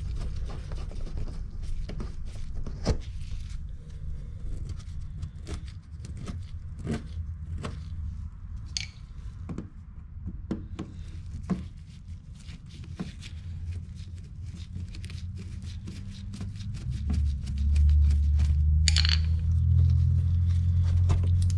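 Plastic push-pin clips in a 2015 Kia Optima's front wheel-well liner being worked loose and pried out with a screwdriver: a run of sharp clicks and plastic scrapes. Near the end a loud low rumble sets in and becomes the loudest sound.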